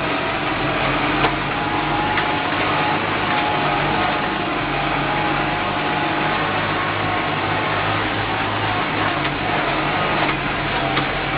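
Tractor engine running steadily while pulling a Kverneland plough, its low hum even throughout, with a few light clicks.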